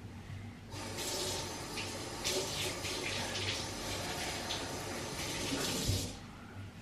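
Kitchen tap running into the sink: the water is turned on under a second in and shut off about a second before the end.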